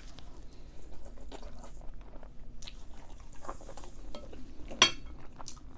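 Close-up chewing of a mouthful of curry and rice, with small clicks and one sharp clink of a fork against the bowl about five seconds in.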